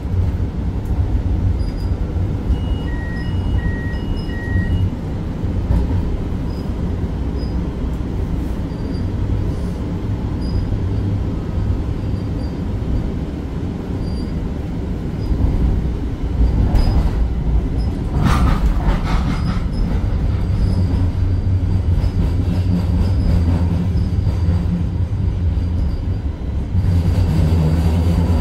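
Light-rail car of Pittsburgh's Red Line heard from inside while running, with a steady low rumble of wheels on track. Three short electronic beeps sound a few seconds in. About two-thirds of the way through comes a brief wheel squeal, and the rumble grows louder near the end.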